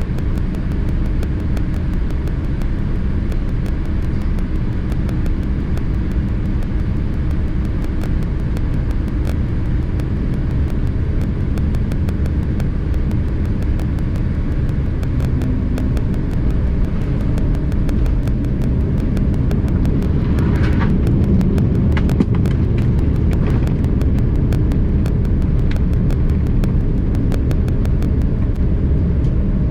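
Steady low rumble inside the cabin of a Boeing 787-10 airliner on its landing approach or rollout, growing a little louder partway through, with a few short rattles about 20 to 23 seconds in.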